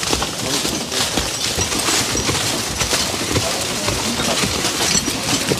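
Dry fallen leaves crunching and rustling under walking boots and the wheels of canoe carts rolling along a leaf-covered trail, a dense steady crackle.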